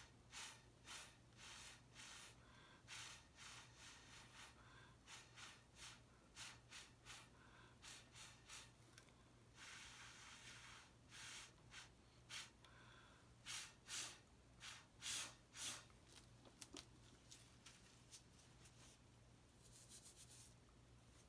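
Short, faint puffs of breath blown through a straw onto wet acrylic pour paint, one every half second to a second, pushing the paint into wispy edges.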